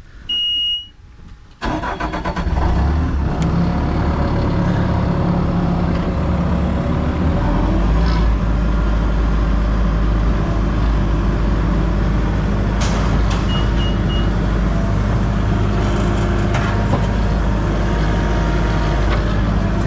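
A Bobcat skid-steer loader's diesel engine starting with a warning beep and running steadily, its low rumble getting heavier a few seconds later as it is throttled up. Three short beeps sound about two-thirds of the way through.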